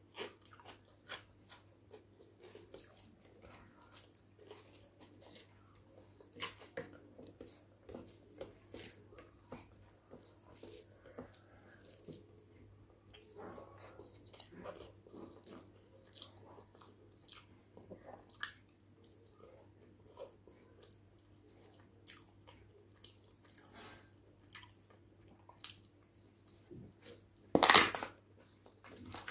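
Close-miked eating sounds of egg biryani eaten by hand: chewing, biting and many short wet clicks and smacks. Near the end, one loud crackle of a crisp papad breaking.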